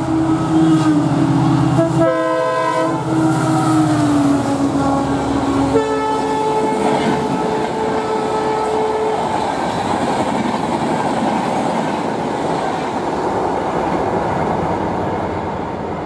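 A WDP4 EMD two-stroke diesel locomotive passing at speed: its engine note sinks slightly in pitch as it goes by, and its horn sounds a blast about two seconds in and another about six seconds in. Then the passenger coaches rush past with a steady clatter of wheels on track.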